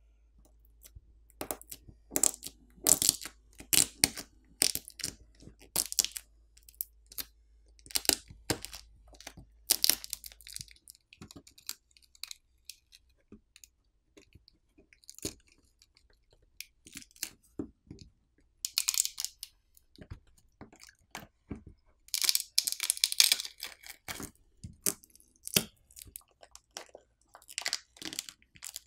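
Battery adhesive crackling and tearing as a smartphone battery is pried up with a plastic pry tool and peeled off the frame. Irregular crackles and clicks, with a few longer tearing rasps.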